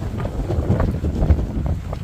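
Strong wind buffeting the microphone: a loud, uneven low rumble that swells and drops with the gusts, with short crackles on top.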